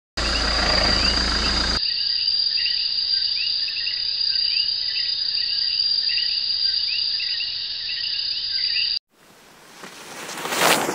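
A passing SUV's engine and tyres are loud for about a second and a half, then cut off abruptly. Next comes a steady high-pitched insect drone with short bird chirps over it. About nine seconds in this stops suddenly, and a rising whoosh swells to a peak near the end.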